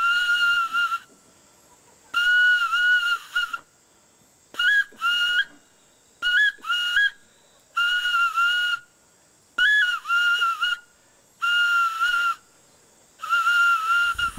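A high, whistle-like tune of clear held notes with short upward-gliding notes between them, played in phrases of about a second with brief pauses.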